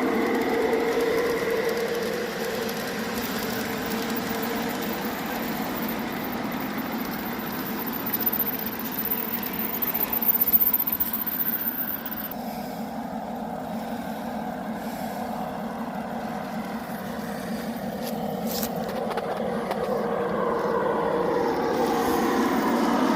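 G scale model freight train running on a garden railroad track: its running noise fades as it moves away, with its quietest stretch in the middle, then grows again as it comes back around. A steady hum runs underneath throughout, and a couple of sharp clicks come about three-quarters of the way through.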